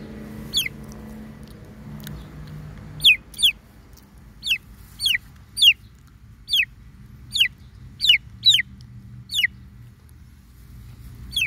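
Baby chicks peeping: about a dozen short, high-pitched peeps, each falling in pitch, coming irregularly every half second to a second.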